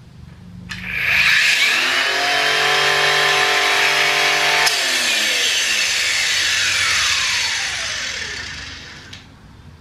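Cordless 20-volt brushless 4.5-inch angle grinder with a kit wheel, run free: it spins up with a rising whine about a second in and runs steadily for a few seconds. The trigger is then released and it winds down over about four seconds. The owner hears it as the cheap wheel being unbalanced and throwing the shaft off quite a bit.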